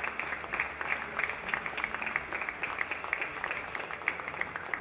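Crowd applauding: many hands clapping in a dense, even patter.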